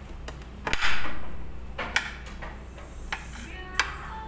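Metal spoon scraping and clinking against a plate as rib meat is cut from the bone. There is a louder scrape about a second in, and sharp clinks near two seconds and near the end.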